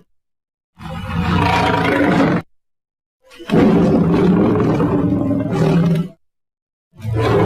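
Big cat roar sound effects played one after another: a roar, a longer second roar, and a third starting near the end, each cut off into dead silence.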